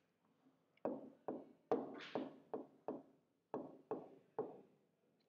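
A stylus tapping on the glass of an interactive touchscreen board during handwriting: about ten short, sharp taps at irregular intervals, with a brief scratch of a pen stroke about two seconds in.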